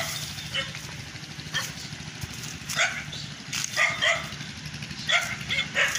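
A dog barking repeatedly, short barks about once a second, over a steady low engine hum.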